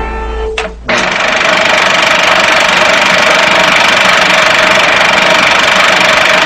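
The last held note of a short TV jingle dies away. After a click about a second in, a loud, steady drone with a constant hum sets in and does not change.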